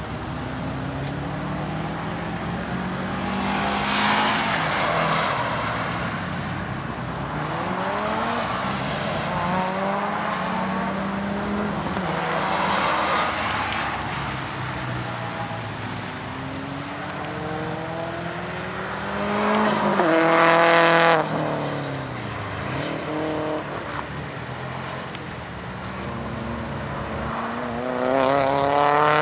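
Cars at full throttle on a race track, passing one after another: each engine climbs in pitch through the gears and falls away as it goes by. The loudest pass comes about two-thirds of the way through, with a sharp drop in pitch as the car goes past.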